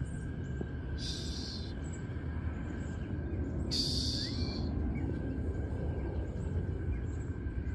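Outdoor ambience with wind rumbling on a handheld phone microphone, and two short high-pitched buzzy animal calls, one about a second in and one near the middle.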